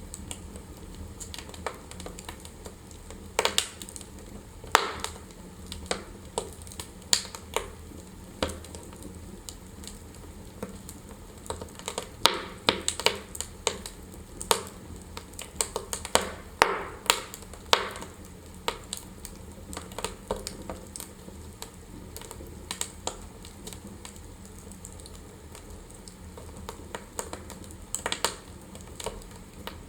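Wood fire crackling in a fireplace: irregular sharp pops and snaps over a low steady hiss, with a dense cluster of pops in the middle stretch.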